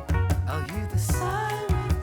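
Upbeat dance music with a fast, steady beat and strong bass, with a sung or synth melody line.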